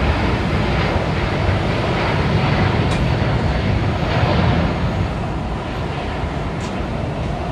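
Rolls-Royce Trent XWB jet engines of an Airbus A350-941 at takeoff thrust, a steady loud rumble and roar that eases slightly near the end as the airliner departs.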